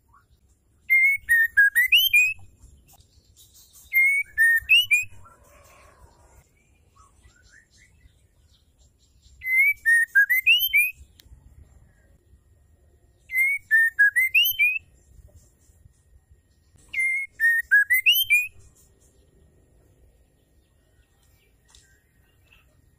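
Female white-rumped shama (murai batu) calling: the same short whistled phrase five times, a few seconds apart. Each phrase dips and then sweeps up, over a spray of high thin notes. It is the female call that keepers use to spur male shamas into singing.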